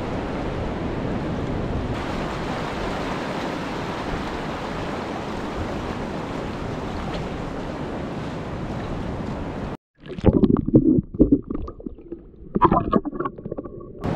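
Steady wash of ocean surf and wind on the microphone. About ten seconds in the sound cuts off abruptly, then comes back muffled as loud, irregular low rumbles and thumps.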